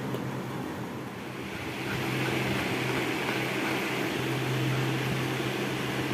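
A steady low hum with a broad hiss that grows louder about two seconds in.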